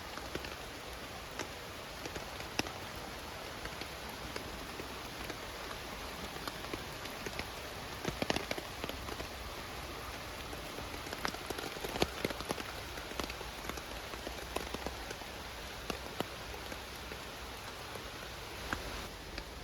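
Steady rain falling on a hexa tarp, an even hiss with many scattered drops tapping on the fabric, a little busier around the middle.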